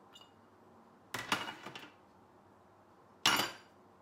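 Kitchen handling noise as grated apple is scraped with a silicone spatula out of a small glass bowl into a glass mixing bowl: a scraping burst about a second in, then a sharper, louder knock near the end.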